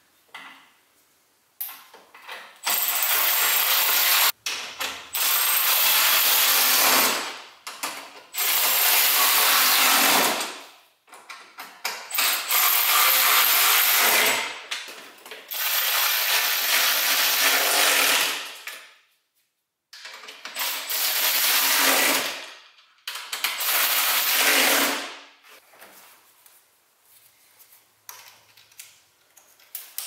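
Red cordless power tool driving fasteners in a series of about seven runs of two to three seconds each, starting abruptly and several winding down at the end, with short pauses between.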